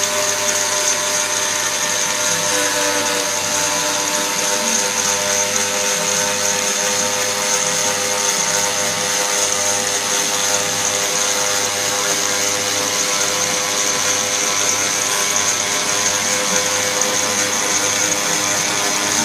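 CNC router spindle running steadily while machining foam, with a continuous high whine and lower machine tones that step to new pitches now and then.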